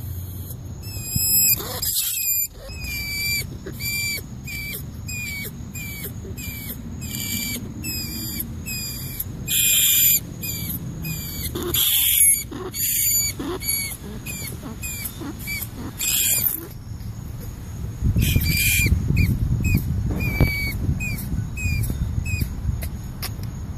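Rat squeaking: a steady run of short, high squeaks about twice a second, broken by several louder, longer squeals, with a low rumble underneath near the end.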